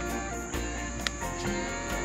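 Background music with held notes, over a steady high-pitched chirring of insects.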